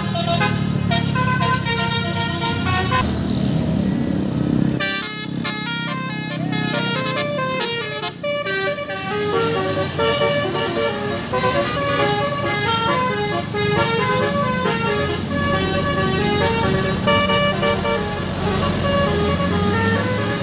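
Bus telolet basuri horn playing a melody of quick stepping notes over the bus engine running. The notes thin out about three seconds in and start again around five seconds.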